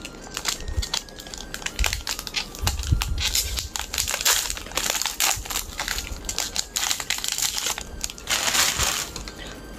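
Foil wrapper of a Pokémon card booster pack crinkling and tearing as it is opened by hand, with louder spells of rustling midway and again near the end.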